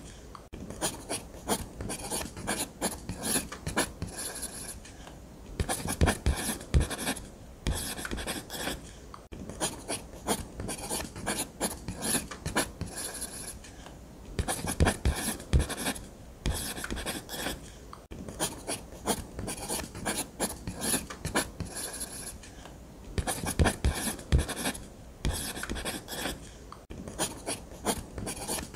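Ballpoint pen drawing on paper: quick strokes in runs of a second or two, with short pauses between runs.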